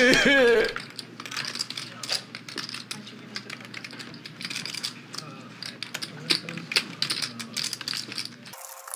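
Poker chips clicking against each other as a player handles a stack of chips at the table: many small, sharp, irregular clicks.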